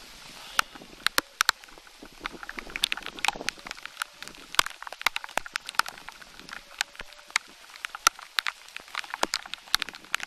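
Rain falling: a steady scatter of sharp, irregular ticks as drops strike close to the microphone, several every second, over a faint background hiss.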